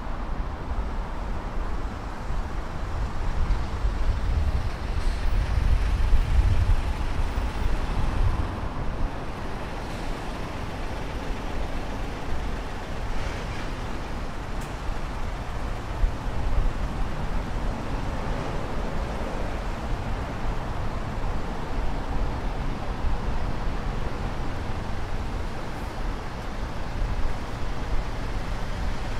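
City street traffic: motor vehicles passing over a steady road hum, with a heavier vehicle loudest and deepest a few seconds in.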